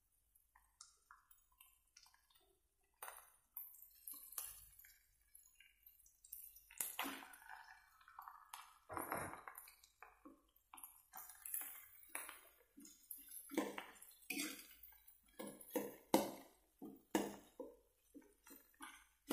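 Metal spatula scraping and clinking against a wok as fried rice is stir-fried: irregular, fairly faint scrapes and knocks.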